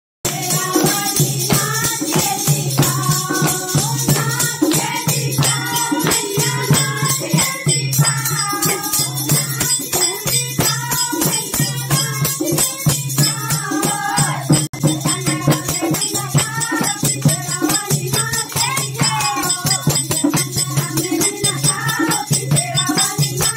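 A Hindu devotional bhajan sung by a group of women over fast jingling, rattling hand percussion and a steady low drum-like beat.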